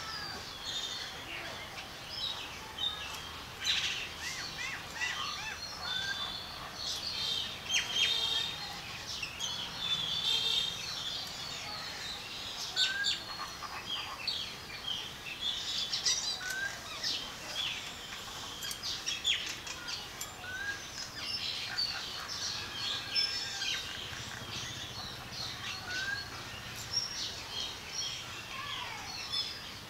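Several birds chirping and calling throughout, with a short rising whistled note repeated every few seconds.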